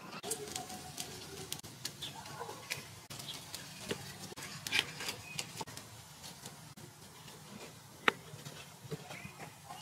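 Metal kitchen tongs and pieces of grilled fish and chicken clicking and tapping on a wooden serving platter as the food is arranged, scattered irregular taps with one sharp knock about eight seconds in.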